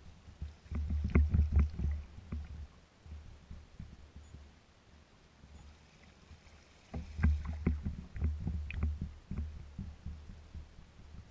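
Water slapping and splashing against a kayak's hull as it is paddled, with a low rumble under it. It comes in two spells of quick knocks and splashes, about a second in and again about seven seconds in.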